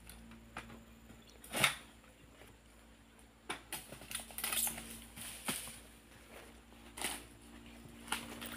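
Sharp knocks of a Camel King 111 sickle on a long pole striking and cutting oil palm frond bases, about six strokes spaced irregularly a second or so apart.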